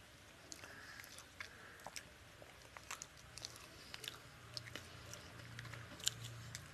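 Close-miked eating sounds: scattered sharp, wet clicks and smacks of chewing as fingers pick curried pomfret flesh off the bones, the loudest click about six seconds in.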